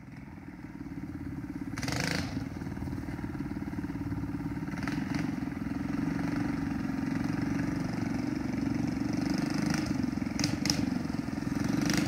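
Mini bike's small single-cylinder engine running steadily and getting louder over the first couple of seconds, with a few brief rushes of noise along the way.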